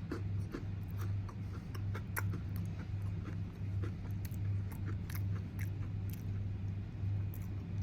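Close-up chewing of an Oreo cookie with Pop Rocks popping candy in the cream: many small irregular crackles and clicks over the chewing, with a steady low hum underneath.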